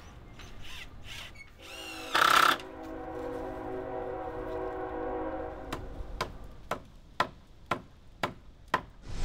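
Hammer striking wooden boards, a steady run of sharp blows about two a second starting near the middle. Before the blows there is a held droning tone with a short loud blare about two seconds in.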